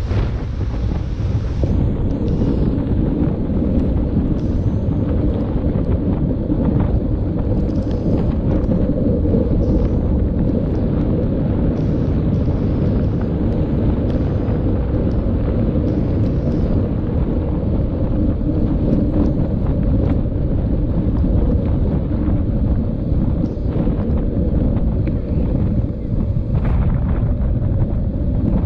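Wind buffeting the microphone of a camera mounted on a mountain bike being ridden, a steady low rumble, with occasional faint knocks.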